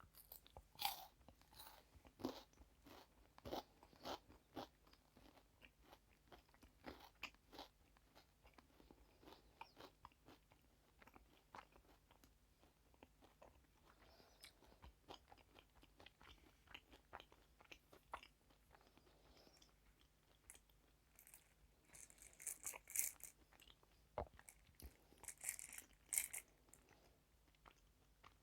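Close-miked chewing and crunching of sweets, with many sharp crunches at first, softer chewing in the middle, and two louder bursts of crackly crunching near the end.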